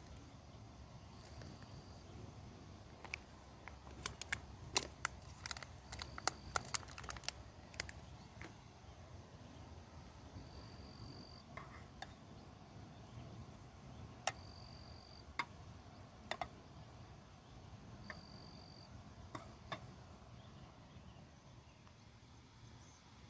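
Quiet campsite ambience: a steady low rumble with scattered sharp clicks and ticks, thickest a few seconds in, and a short high chirp repeating every four seconds or so.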